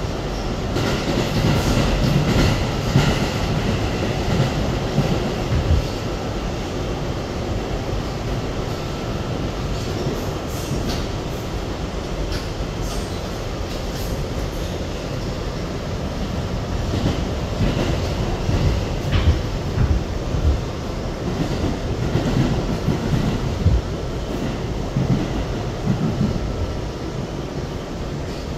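R211A subway car running between stations, heard from inside the car: a steady rumble of wheels on the rails with occasional sharp clacks, and a faint high wheel squeal near the start.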